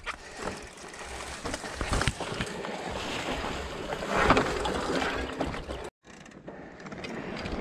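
Wind rushing over the microphone, with the rattles and knocks of a mountain bike riding over rough, rocky trail. The sound cuts out briefly about six seconds in.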